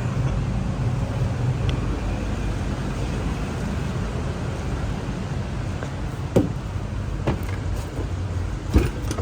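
Four-cylinder Mercedes diesel engine of a Freightliner MT45 idling with a steady low rumble. A few sharp knocks come near the end.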